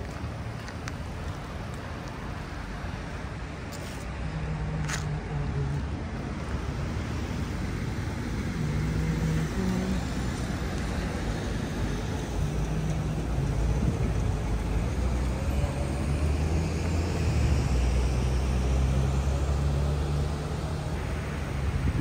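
City road traffic: vehicle engines running and passing, a low rumble that grows louder in the second half.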